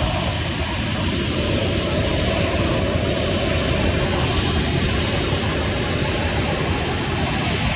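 Boeing 737's two jet engines running at low taxi thrust: a steady, loud rushing with a thin high whine.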